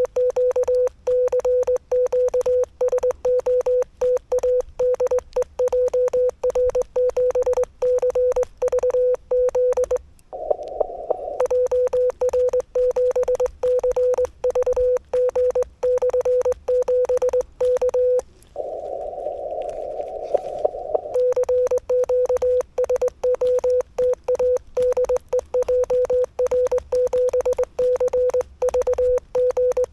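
Morse code from the Yaesu FTX-1F transceiver's CW sidetone, a single steady beep keyed by hand on a straight key in long runs of dots and dashes. It breaks twice for a second or two of receiver hiss through the narrow CW filter while the operator listens between sendings.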